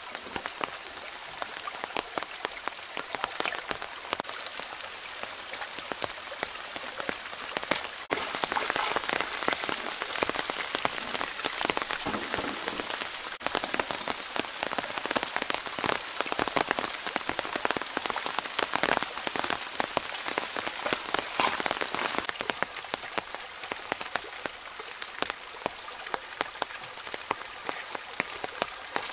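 Shallow rocky stream trickling and splashing, a dense patter of small water ticks that grows louder about eight seconds in.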